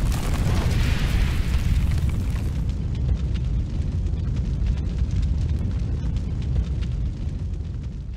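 Cinematic eruption sound effect for a lava-themed logo reveal: a deep, steady rumble with a hissing rush over it in the first few seconds, then light crackles over the rumble, fading at the end.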